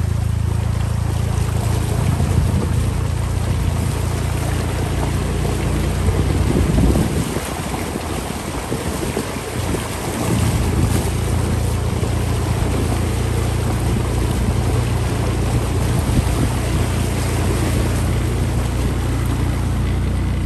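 A small engine running steadily under a broad rushing noise; about seven seconds in it eases off and sounds rougher for a few seconds, then settles back to its steady note.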